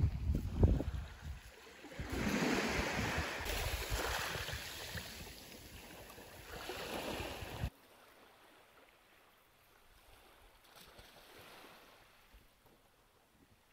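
Small waves washing onto a beach, with wind buffeting the microphone at first. The sound cuts off suddenly about eight seconds in, leaving near silence.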